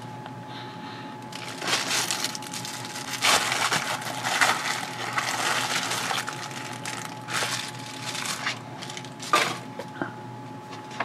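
Plastic poly mailer crinkling and rustling in irregular bursts as it is handled and opened, with a few short clicks near the end.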